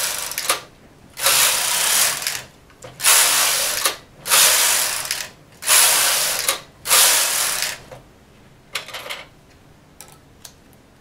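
Knitting machine carriage pushed back and forth across the needle bed, knitting rows of waste yarn: a rasping, clattering slide about a second long, repeated six times with short pauses, the first already running at the start. The strokes stop about 8 s in, followed by a few faint clicks as the yarn is cut with scissors.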